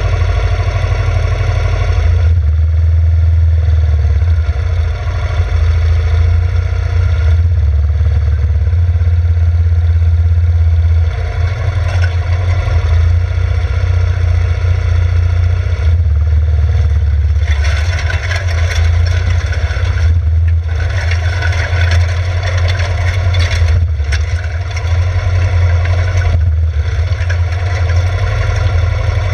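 Yamaha Grizzly 600 ATV's single-cylinder engine running steadily at a slow crawl, with a backhoe tractor's engine running just ahead. For several seconds past the middle, brush swishes and scrapes against the vehicle.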